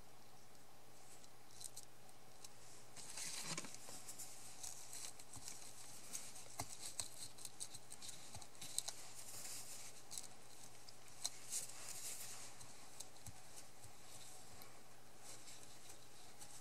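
A cloth rubbed over a paper card, faint rustling and scrubbing with small taps, starting about three seconds in: wiping away excess glue from around a die-cut paper frame just glued down.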